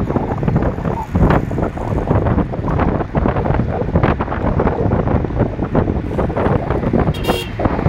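Wind buffeting the microphone of a camera carried on a moving bicycle, a loud continuous rumble with constant gusty thumps. A brief high-pitched ringing tone sounds about seven seconds in.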